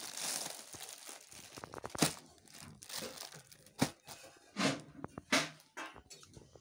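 Clear plastic packaging crinkling as a folded bedsheet is slid out of it, then the sheet and its wrapper rustling as it is unfolded and smoothed, with several short sharp rustles.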